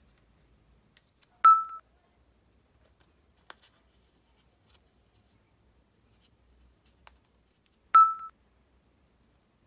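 Two identical short, bright dings, about six and a half seconds apart: an edited-in sound effect that pops up with each on-screen caption. Faint taps of paper cards being handled lie between them.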